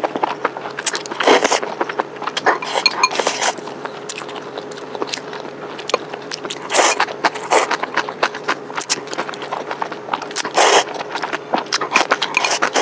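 Close-miked eating of spicy vermicelli noodles: about six loud, noisy slurps up to a second long, with many wet chewing clicks in between.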